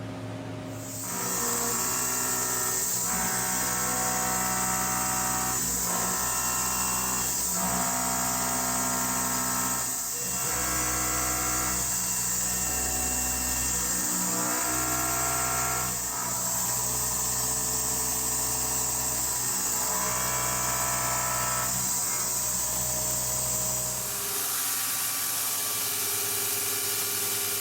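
CNC machine tool cutting metal: a steady high hiss over tones that shift every second or two as the cutter works.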